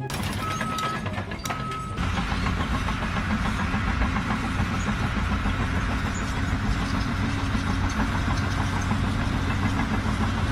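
An engine running steadily, with two short high beeps in the first two seconds.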